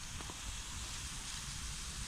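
Steady sizzling hiss of beef and onions frying in a cast-iron pot over a campfire, with a low rumble underneath.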